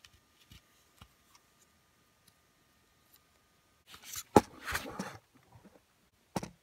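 Handling noise from a hard plastic FPV goggle held in the hand: a few light clicks, then about four seconds in a second or so of scraping and rubbing with one sharp click, the loudest sound, and another short knock near the end.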